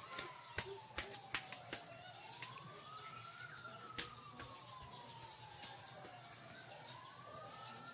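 Emergency-vehicle siren in a slow wail, its pitch sliding down and back up about every four and a half seconds, faint under scattered sharp clicks.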